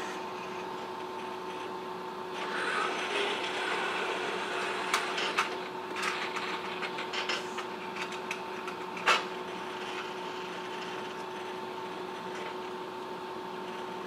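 Baxter robot arm's joint motors whirring as the arm moves, starting about two seconds in and lasting some six seconds, over a steady hum. A few sharp clicks and knocks of small parts and the gripper at the workbench, the loudest about nine seconds in.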